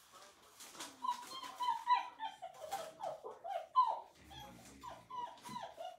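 Puppies whimpering: a string of short, high whining cries, many falling in pitch, starting about a second in.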